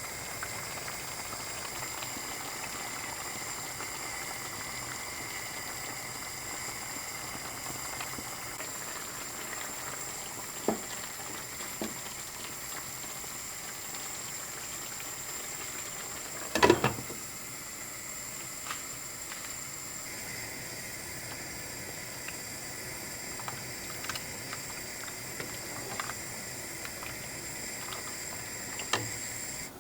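Tomato and minced-meat sauce simmering in a pan, a steady bubbling hiss. A few short knocks come through it, the loudest about 17 seconds in.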